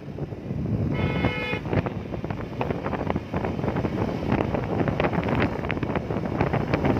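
A vehicle horn honks once, briefly, about a second in, over steady wind noise on the microphone with scattered clicks and rattles.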